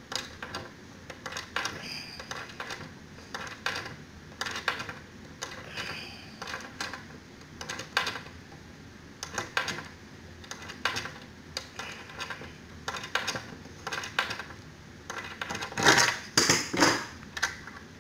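Irregular metallic clicks and scraping as a stripped screw and its metal hook fitting are worked loose from a wooden board by hand, with a louder clatter of metal near the end.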